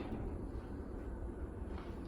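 Chamberlain belt-drive garage door opener raising the door after a belt replacement: a faint, steady low hum.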